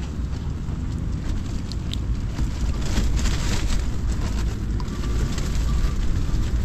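Strong wind buffeting the ice-fishing tent and the microphone: a steady, heavy low rumble with a rustling haze over it.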